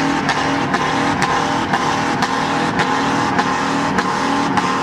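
Pickup truck engine run hard under load while it drags a weight-transfer pulling sled across the dirt, with sharp clicks about twice a second over the engine noise.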